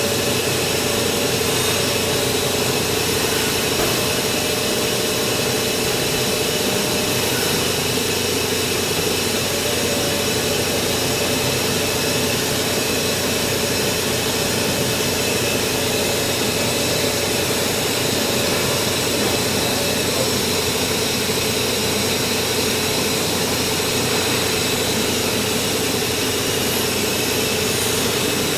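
Hurco VMX30U CNC vertical machining centre running, its spindle milling a workpiece held in a vise: a steady, even machine hum with a held mid-pitched tone and fainter high tones over it.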